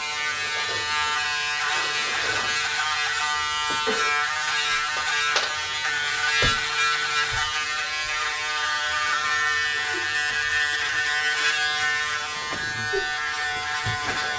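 Braun Series 7 electric foil shaver running with a steady buzz as it is passed dry over neck and sideburn stubble, with a few sharp ticks along the way.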